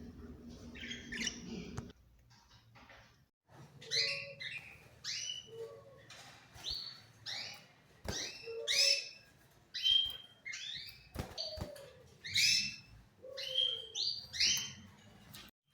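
Caged birds giving short, repeated chirping calls, about one or two a second.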